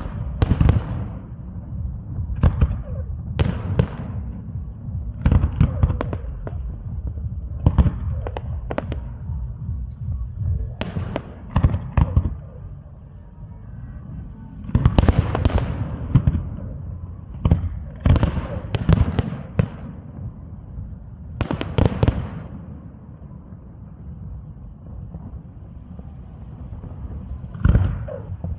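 Fireworks display: aerial shells bursting in an irregular series of sharp booms, some in quick clusters, with a low rumble lingering between them. The bursts thin out near the end before two more go off.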